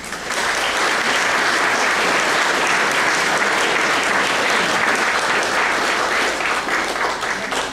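Audience applauding: many hands clapping together in a dense, steady round that cuts off near the end.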